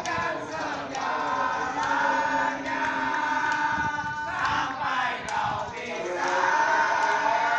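Crowd of football supporters singing a chant together, holding long notes, with a brief break between phrases about halfway through and a few sharp knocks.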